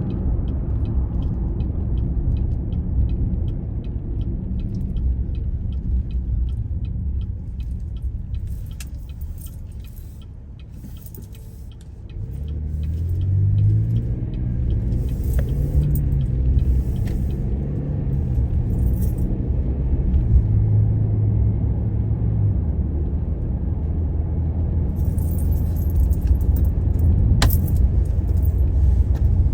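Car running on the road, heard from inside the cabin as a low rumble, with a light, regular ticking over the first several seconds. About ten seconds in it drops quieter, as if slowing or stopped. Then the engine note climbs as the car pulls away and accelerates, and it settles into steady driving noise.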